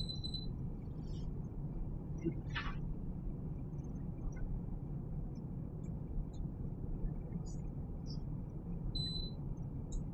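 Short, high single-pitch beeps from a glass-top electric cooktop's touch controls, one as it begins and two close together near the end, as the controls are pressed to get the hob to switch on. A brief clatter comes about two and a half seconds in, over a steady low hum.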